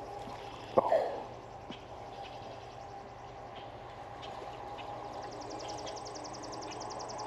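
A single knock about a second in, then from about five seconds in a fishing reel being cranked with a rapid, even clicking as a fish is reeled in.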